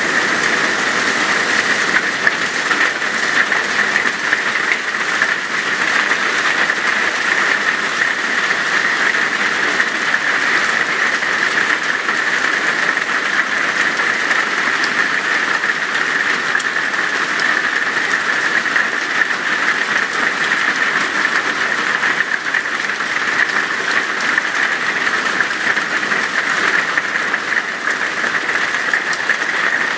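Heavy hail pelting down on a paved patio and yard: a loud, steady clatter of countless small impacts that does not let up.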